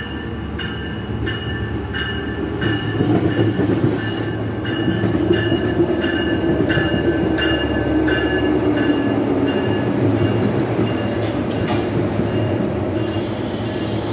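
Passenger train rolling past the platform, its rumble of wheels on rail growing louder a few seconds in as the cars draw alongside. A bell rings steadily, a bit under twice a second, and stops around ten seconds in.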